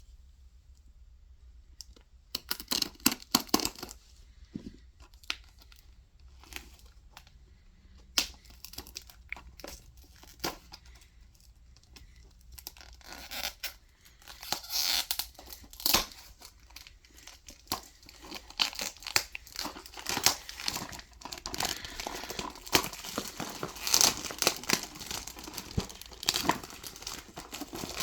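Plastic shrink wrap being torn and peeled off a DVD case, with irregular crinkling and ripping that grows busier in the second half.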